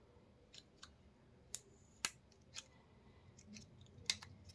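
A handful of small, sharp clicks and taps as a smartwatch and its cardboard packaging insert are handled and the watch is pulled off the insert. The loudest click comes about two seconds in and another near the end.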